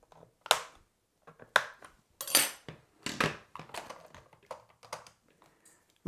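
Hard plastic clicking and clattering as the catch on the underside of a Shark cordless stick vacuum's floorhead is undone and its brush-roll cover is lifted off. A handful of sharp clicks come about a second apart, the loudest near the middle.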